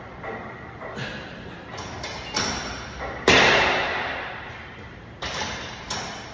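Gym weights and equipment thudding and clanking: five or so sudden knocks, the loudest about three seconds in, ringing out for over a second.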